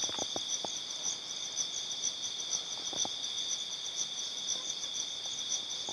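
Crickets chirring in a steady, high-pitched chorus, with a few faint clicks near the start and about three seconds in.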